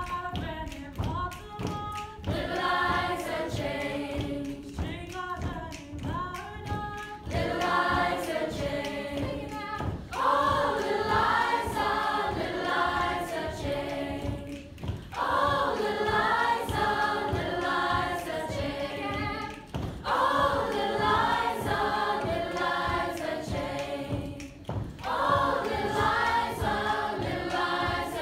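Mixed choir of teenage voices singing a cappella in several parts, in phrases with short breaks between them. Regular low thumps keep the beat underneath.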